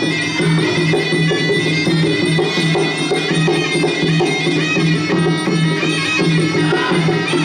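Traditional Khmer boxing music: a reedy sralai oboe playing a wavering melody over a steady drone and drums.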